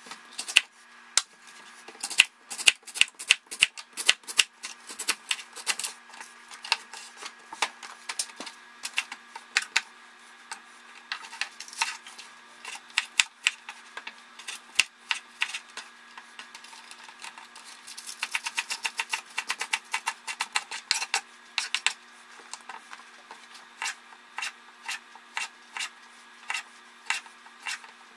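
Kitchen knife chopping on a wooden cutting board, slicing fennel, scallions and cherry tomatoes: sharp, uneven knocks, with a quick run of rapid chops about two-thirds of the way through.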